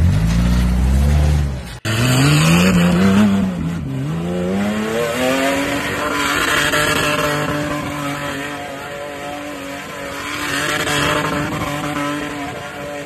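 Opens on a different off-road vehicle's engine at low revs. About two seconds in it cuts to an old flat-fender Jeep's engine revving hard, rising and falling several times, then held high and steady as the Jeep spins circles through mud.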